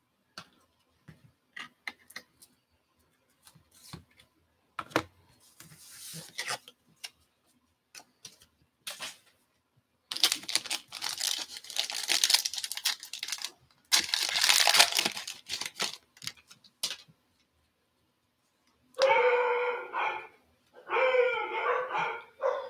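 A foil trading-card pack wrapper being torn open in two long rips about ten and fourteen seconds in, after light clicks and rustling of cards being handled. Near the end a dog barks several times.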